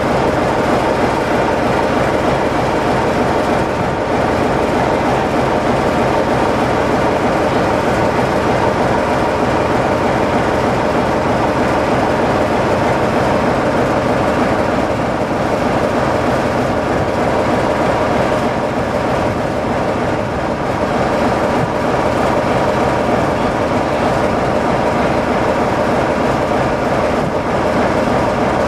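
Class 47 diesel locomotive's Sulzer twelve-cylinder engine running steadily close by, a loud, even drone with a constant pitch.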